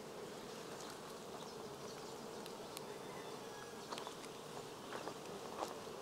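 Honey bees at an open hive buzzing as a faint, steady hum, with a few light ticks scattered through it.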